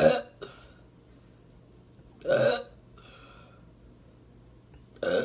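A woman burping three times: short burps about two and a half seconds apart.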